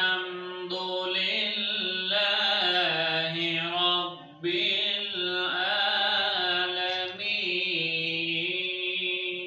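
A man's voice reciting the Quran in a slow melodic chant, holding long notes, with a short pause for breath about four and a half seconds in.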